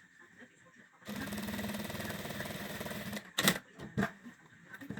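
Sewing machine stitching at a steady fast rate for about two seconds after a second's pause, then stopping; two sharp clicks follow.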